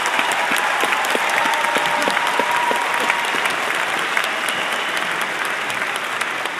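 A large audience applauding, a dense patter of many hands clapping that slowly dies down toward the end.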